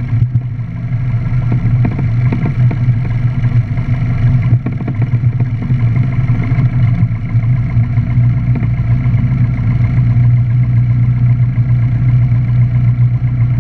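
Single-engine light aircraft's piston engine and propeller running steadily at low power as the plane taxis, heard from the cockpit, with scattered rattles and knocks in the first half.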